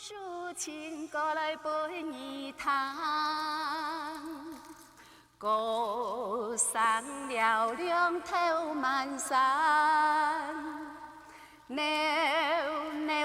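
A woman singing held notes with vibrato, in three phrases broken by short pauses about five and twelve seconds in.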